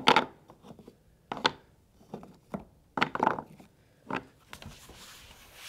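Four or five sharp knocks and clacks about a second apart, cut pieces of PVC tongue-and-groove porch decking being pulled out and handled after a track-saw cut.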